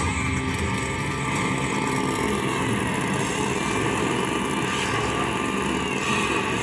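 Motorcycle engine sound effect running steadily from a Sons of Anarchy slot machine while its free-games multiplier climbs from x3 to x5.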